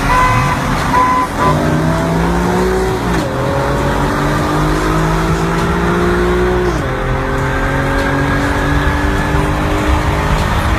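Car engine at full throttle accelerating hard through the gears, its pitch climbing steadily and dropping at two upshifts, about three and seven seconds in, over road and wind noise.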